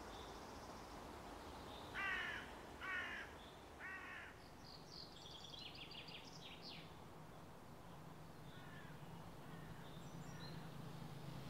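A crow cawing three times, about a second apart, followed by fainter chirping of small birds.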